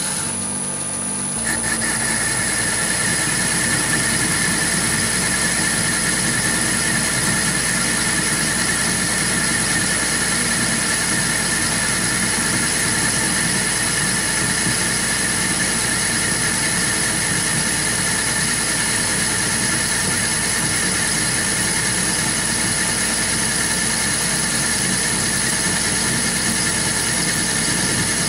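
Chinese mini lathe running at about 300 rpm while a DCMT 070204 carbide insert takes an intermittent cut on a tool steel block. The sound is a steady machine noise with a high-pitched whine that sets in and grows louder about a second and a half in.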